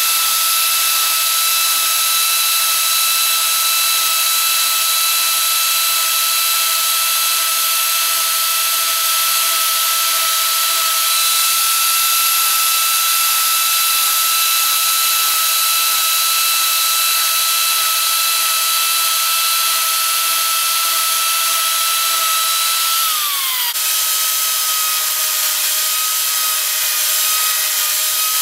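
Arbortech Mini Pro power carver running with a steady high whine as its cutter texturing wheel cuts into a wooden board. About three quarters of the way through, the whine slides down and breaks off, then carries on at a slightly lower pitch.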